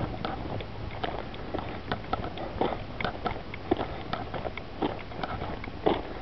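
Footsteps on a dry desert dirt trail: an irregular run of short crunchy steps.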